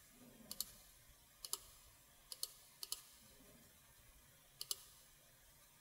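Computer mouse clicking: about five short clicks spread a second or so apart, each a quick press-and-release pair, against near silence. These are anchor points being placed one by one while tracing a path.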